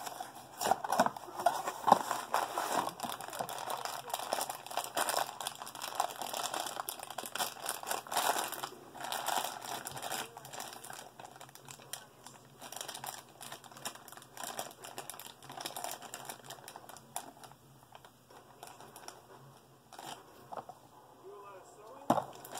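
Funko Mystery Minis blind-box packaging crinkling and tearing as it is opened by hand: a dense run of crackles, busiest in the first half and sparser near the end.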